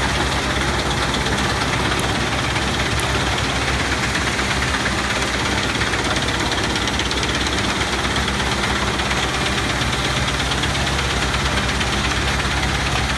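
Large diesel engine of a wood chipper running steadily, with a constant rushing noise over the engine note.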